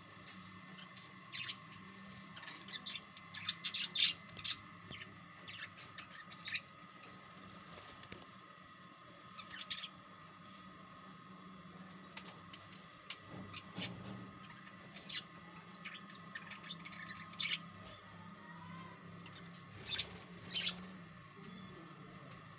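Parrot giving short, sharp chirps and squawks at irregular intervals, loudest in a cluster about four seconds in and again near the middle and end, over a steady faint hum.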